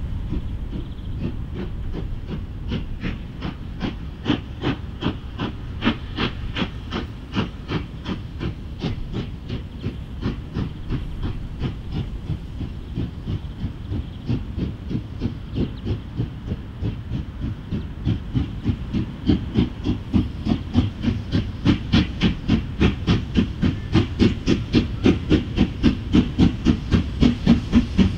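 Steam locomotive working under steam, its exhaust beating in an even chuff of about three beats a second over a steady low rumble, the beats growing louder in the last third as the train draws nearer.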